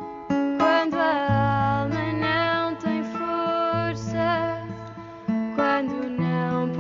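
Music with plucked acoustic guitar, a wavering melody line over long held bass notes.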